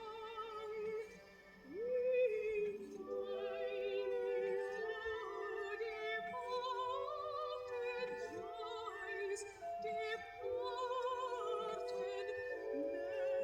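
A vinyl record playing on a vintage record player: operatic-style singing with wide vibrato over musical accompaniment, with a short quieter moment about a second in.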